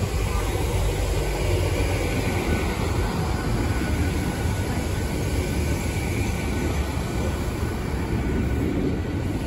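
GWR Class 802 bi-mode express train running on its underfloor diesel engines as it moves away down the line. There is a steady rumble of engines and wheels on rail, with a faint high whine over it.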